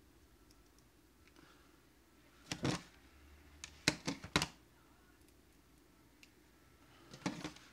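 Light plastic clicks and knocks from handling a clamp meter and its test probes: a short cluster about two and a half seconds in, three sharp clicks a second or so later, and another cluster near the end, over faint room tone.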